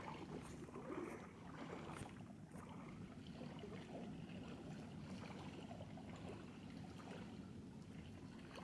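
Faint lakeside ambience: small wind-driven waves lapping softly at the water's edge, with scattered light splashes over a low, steady rumble.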